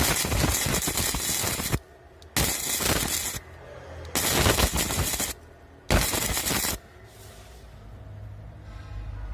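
Gasless (flux-cored) MIG welding arc crackling and spattering. A long run that stops a little under two seconds in is followed by three shorter bursts of about a second each, after which the arc goes out.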